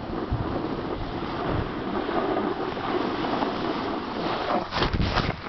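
Wind rushing over the microphone with the steady hiss of a snowboard sliding over packed snow. A few brief scuffs near the end.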